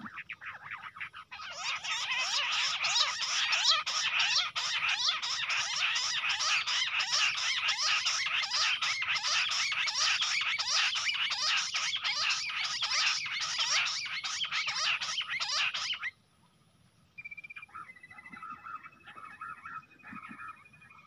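Bush quails calling: a loud, dense chorus of rapid harsh notes that runs for about fifteen seconds and stops abruptly. After a short gap, a thin, steady whistled tone follows with fainter notes.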